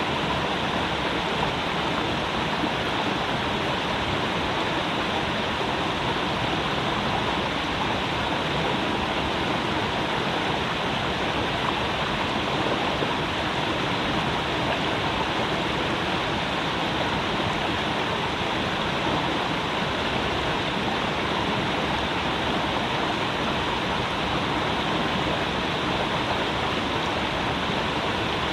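Creek water running over rocks: a steady, even rush with no change.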